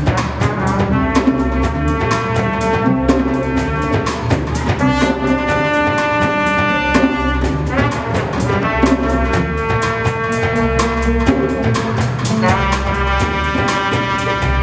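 Live jazz band: trumpets playing long held notes over a steady beat from drum kit and djembe, with bass guitar underneath.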